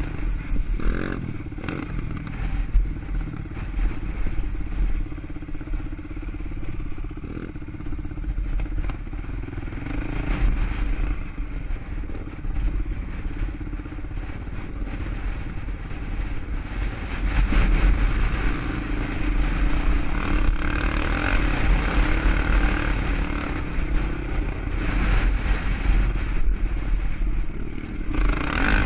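ATV engine running under changing throttle on an off-road ride, with a steady low rumble beneath it; it gets louder about halfway through.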